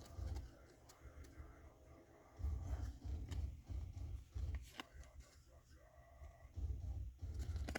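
Trading cards being handled and flipped through: faint rustles and soft ticks of card stock, with low handling bumps in patches.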